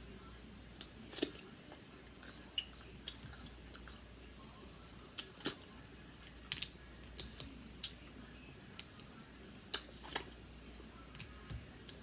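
Close-miked eating: chewing, with irregular sharp clicks and small cracks as the meat is picked from a Dungeness crab's shell.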